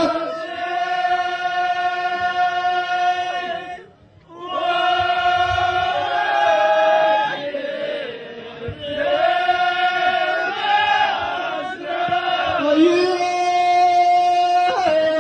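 Amazigh ahwach men's chorus chanting in unison in long drawn-out notes, with a brief pause about four seconds in before the chant resumes.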